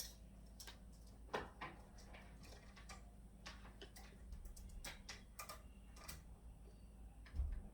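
Faint, irregular light clicks and taps of markers and a plastic toy blaster being handled, with a dull thump near the end.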